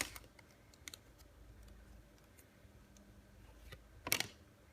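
Hockey trading cards being handled and flipped through: scattered faint clicks, with one brief louder card swish about four seconds in.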